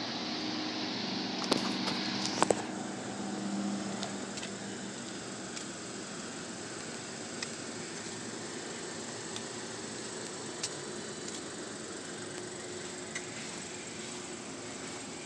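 Steady mechanical hum and hiss of a running vehicle, with two sharp clicks about one and a half and two and a half seconds in.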